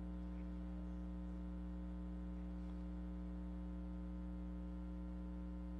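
Steady low electrical mains hum, with a stack of fainter higher hum tones above it, holding unchanged throughout.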